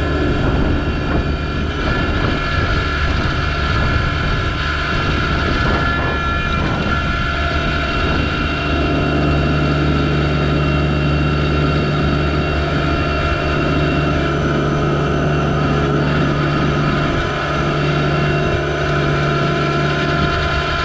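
Yanmar SA324 compact tractor's three-cylinder diesel engine running steadily, its low note shifting slightly now and then.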